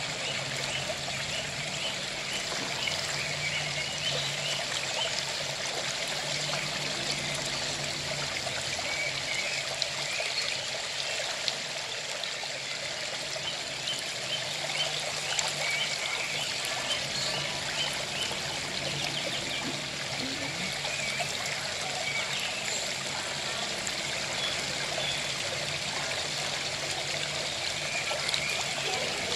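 Flowing water running steadily, like a stream or trickle.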